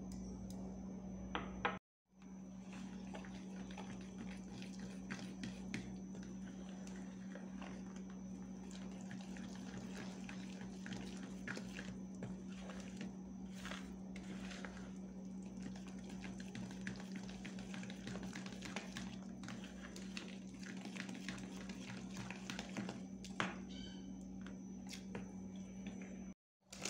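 A metal spoon stirring thick, wet fritter batter in a plastic tub: irregular small scrapes and taps against the tub, over a steady low hum.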